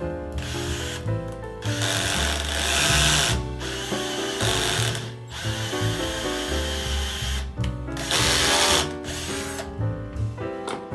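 A power drill runs in several bursts of about a second or so each, over background music with a stepping melody.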